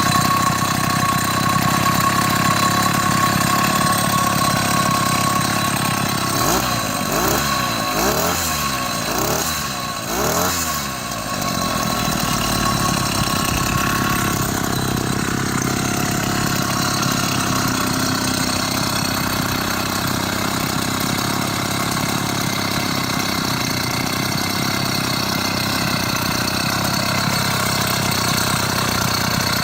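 The small 80cc two-stroke kit engine of a motorized bicycle running steadily, revved up and down several times about a third of the way in. By the owner's account it still needs tuning.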